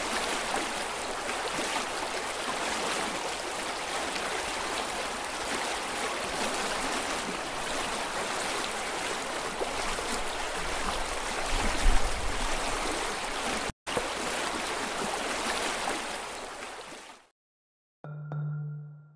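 Steady rushing of water flowing down a concrete stream channel, with a low rumble on the microphone about twelve seconds in. The water fades out near the end, followed by a short low tone.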